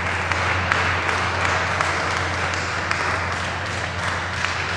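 A group of people applauding, a dense patter of hand claps that eases off slightly near the end.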